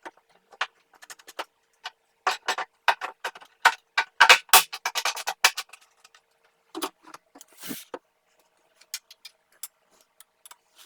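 A run of irregular knocks and clicks, densest in the first half, as plywood wing panels are handled and fitted onto a miter-saw dust collection hood.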